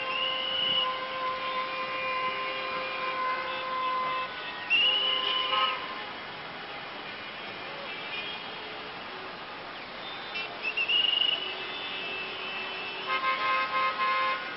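Congested city-street traffic: car horns honking on and off over the steady noise of the traffic, one horn held for several seconds at the start and shorter honks later.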